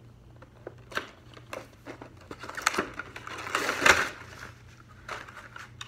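Cardboard figure box being opened by hand and a clear plastic blister tray slid out of it, with scattered clicks and rustling. The loudest crinkling scrape comes about three and a half to four seconds in.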